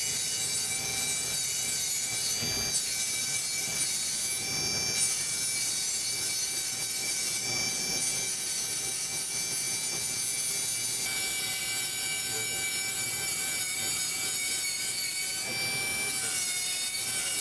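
Small high-speed rotary grinder (Dremel) with a burr grinding Inconel 738 turbine vane metal, a steady high whine over a grinding hiss, its pitch shifting slightly a couple of times. This is the prep grinding that clears the damaged area of impurities before it is laser welded.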